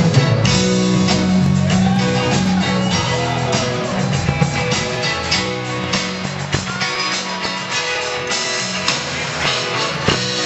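Band music with guitar, bass and drum kit, starting abruptly right at the beginning and playing to a steady beat.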